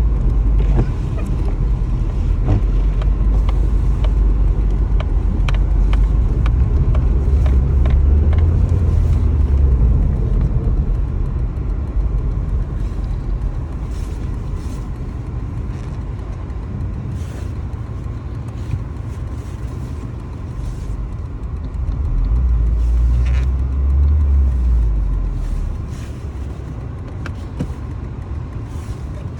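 1999 Volvo S40's 1.8-litre engine running after a cold start with a low rumble that swells louder twice. It runs roughly after sitting two months and having parts taken from it.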